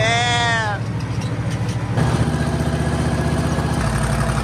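Monster truck's engine running steadily as the truck drives, with a man's short drawn-out "oh" at the start; the engine gets louder about two seconds in.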